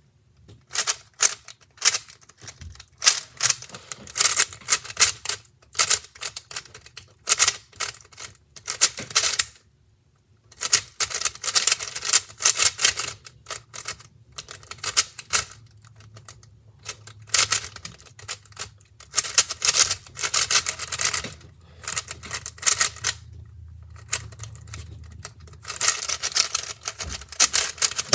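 A 3x3 speedcube being turned fast by hand: rapid clacking of its layers in runs of a second or more, broken by short pauses, one of about a second near the middle.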